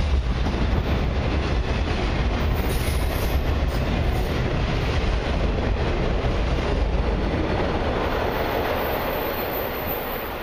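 Freight train of autorack cars rolling past at close range, wheels running on the rails in a steady rumble. The rumble drops away and the level falls about eight seconds in as the last car goes by.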